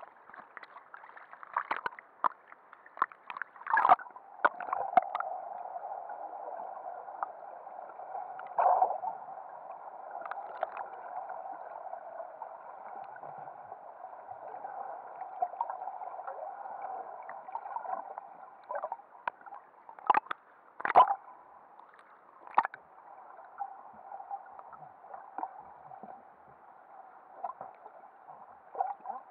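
Muffled underwater sound picked up by a submerged camera: a steady hiss with scattered clicks and knocks. The loudest knocks come about 4, 9 and 21 seconds in.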